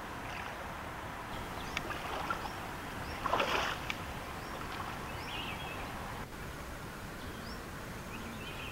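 Water splashing and draining from a woven bamboo basket as it is lifted out of a river about three seconds in. Underneath is a steady outdoor background noise with scattered short bird chirps.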